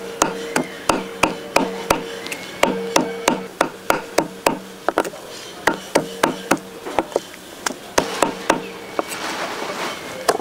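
Meat cleaver chopping raw beef on a round wooden chopping block: sharp chops about three a second, stopping about nine seconds in.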